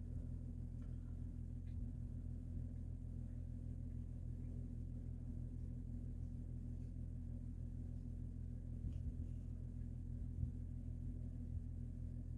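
Steady low electrical hum made of several evenly spaced low tones, unchanging throughout, with a few faint ticks.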